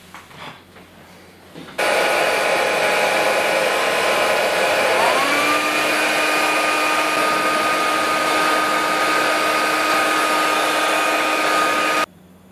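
Hand-held hair dryer switched on about two seconds in, blowing steadily with a whine that rises and then levels off a few seconds later. It is switched off abruptly near the end.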